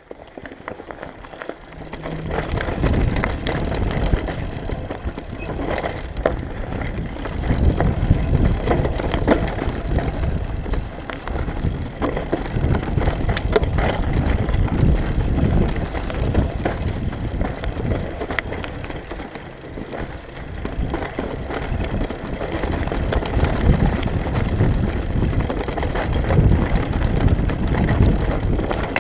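Lapierre downhill mountain bike ridden fast down a rough dirt and gravel trail. The tyres run on loose ground with a steady stream of clicks and knocks as the bike rattles over bumps, and wind buffets the microphone. It is quiet at first and becomes loud about two seconds in as the bike picks up speed.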